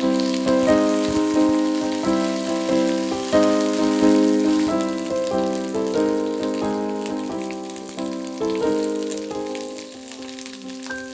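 Background music: a melody of struck, decaying notes, growing quieter about ten seconds in. Under it runs a crackling sizzle of food frying in oil.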